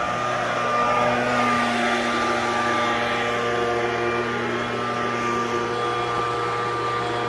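Leaf blower running steadily, blowing dust and debris off a paved driveway: a rushing of air with a steady whine over it.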